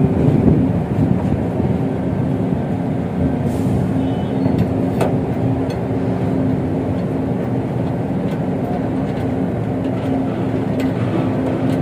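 An engine running steadily, a constant low drone with a fixed pitch, with a few light clicks or knocks about 3.5, 5 and 11 seconds in.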